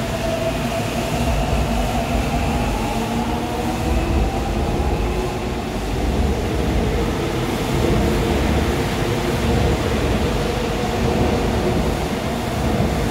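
A Seoul Subway Line 4 electric train passes through the station without stopping. It makes a steady rumble with several whining tones that slowly shift in pitch.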